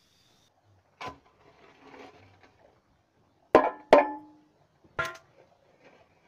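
Old steel pipe knocked against the ground while being handled and stood upright: four ringing metallic clanks, the loudest two close together about three and a half seconds in.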